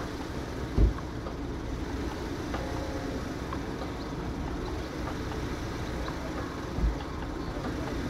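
Steady background rumble of road traffic, with two brief low thumps, one about a second in and one near the end.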